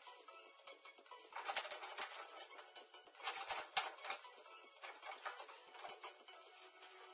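Scattered clicks and light metal knocks as the front fork and wheel of a small motorcycle frame are handled and turned, in two clusters about a second and a half in and again about three and a half seconds in.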